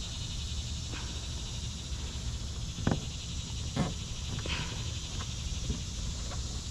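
A steady, high chorus of insects chirring outdoors, with a few soft knocks and rubs from hands pressing a vinyl sticker onto a plastic kayak hull.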